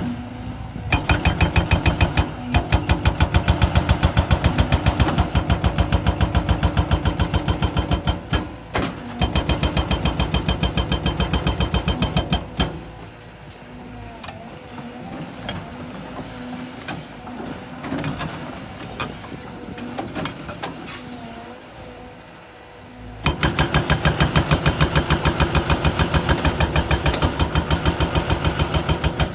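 Cat H120 hydraulic hammer on a Cat 320 excavator breaking rock: rapid, evenly spaced blows in three runs, starting about a second in, pausing briefly near eight seconds, then stopping for a long stretch in which the excavator's diesel engine runs with scattered knocks of rock, before a final long run of blows near the end.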